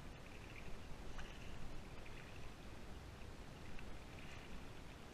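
Steady wind rushing on the microphone with shallow water lapping, and a few faint ticks.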